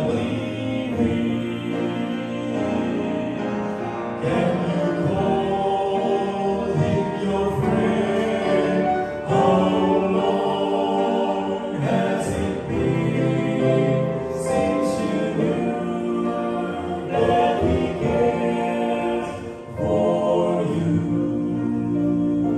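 Male vocal quartet singing a gospel song in close harmony through handheld microphones, with piano accompaniment.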